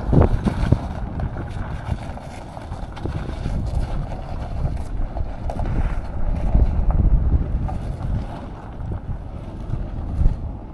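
ATV engine running while riding, with wind buffeting the microphone in a heavy low rumble that swells and eases.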